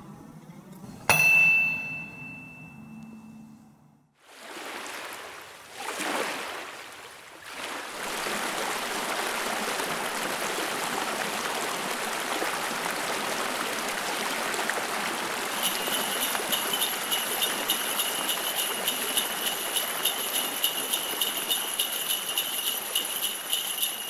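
A sharp ringing hit about a second in, then a steady rush of running water like a waterfall, joined about two-thirds of the way through by sleigh bells jingling in an even rhythm.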